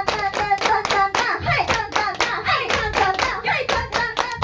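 A live-house crowd clapping in a fast, even rhythm, with voices chanting or singing along over the claps.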